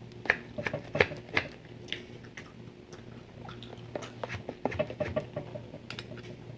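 Gum chewing close to the microphone: irregular wet clicks and smacks, clustered in the first two seconds and again around four to five seconds in, over a steady low hum.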